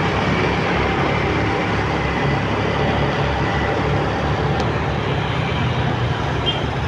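Steady running noise of a motorcycle being ridden in city traffic: a low engine hum under a dense rush of road noise from the bike and the cars alongside.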